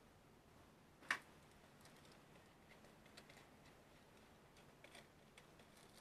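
A sharp knock about a second in, then faint, scattered short scraping strokes of a block of cheese being grated on a box grater.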